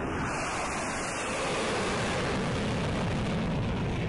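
Airplane sound effect: a steady rushing roar, as of an aircraft flying past.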